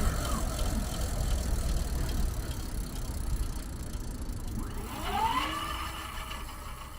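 Electric bike motor whining as it spins up about five seconds in, the pitch rising and then levelling off, over a steady low rumble. The motor runs again with the new controller in place.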